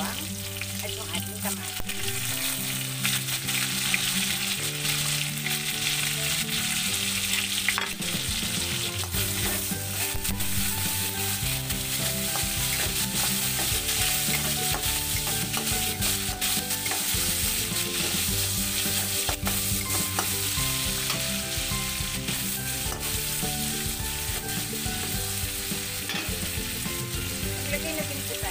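Garlic, onion and tomato sizzling in hot oil in a steel wok, stirred and turned with a metal spatula that knocks now and then against the pan.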